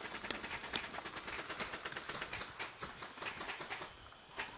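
Airsoft guns firing: a rapid, irregular run of sharp clicks and pops.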